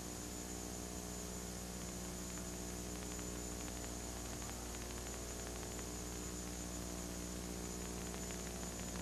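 Steady electrical mains hum with a layer of hiss, the background noise of an old recording, with no commentary.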